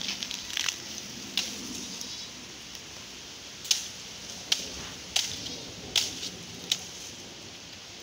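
A knife chopping into a banana plant's green, fibrous stalk: a few sharp cuts in the first second or so, then a run of about five strokes at a steady pace.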